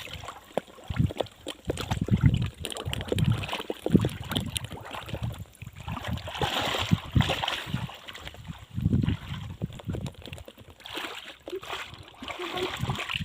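Pond water sloshing and splashing in irregular surges, with swishing stretches about halfway through and again near the end, as water is stirred and worked in the shallows.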